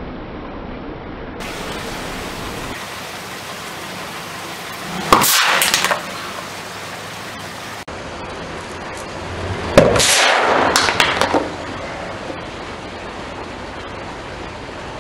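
An aerosol foam spray can bursting under a car tyre: a sharp pop followed by about a second of hissing spray, heard twice.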